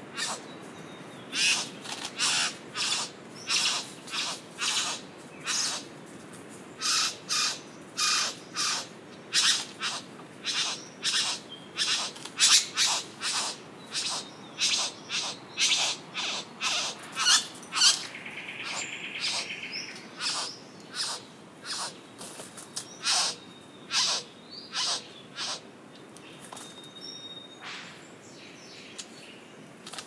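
Male satin bowerbird calling to a female at his bower in courtship display: a long run of short, harsh calls about two a second, with a brief buzzing churr about eighteen seconds in. The calls thin out near the end.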